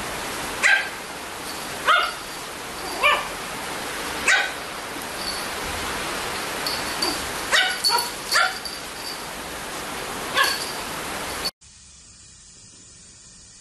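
A small dog yapping: about eight short, high barks at uneven intervals, some in quick succession, over a steady hiss. Near the end the barking cuts off abruptly, leaving only a faint hiss.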